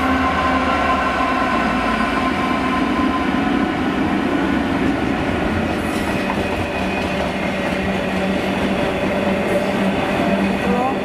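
A double-headed freight train passing close by: a Class 66 and a Class 60 diesel locomotive go past with a steady engine drone, then container flat wagons roll by, clattering over the rail joints. The engine tones fade after about three seconds, leaving the rolling noise of the wagons.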